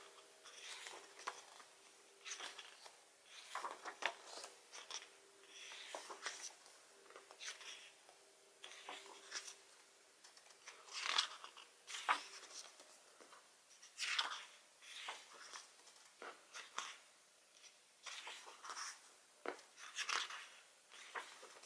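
Pages of a photobook album being turned by hand: soft, irregular papery rustles and swishes every second or two, a few of them louder.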